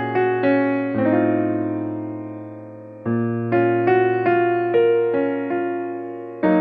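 Background piano music: a slow melody of single notes over held chords, with one long chord fading away before the notes pick up again about three seconds in.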